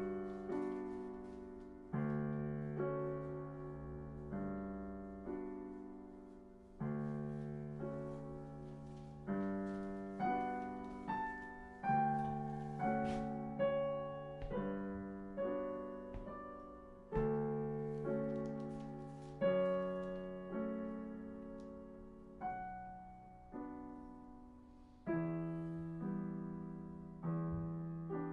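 Solo piano playing a slow, gentle piece: chords and single notes struck one after another, each left to ring and fade.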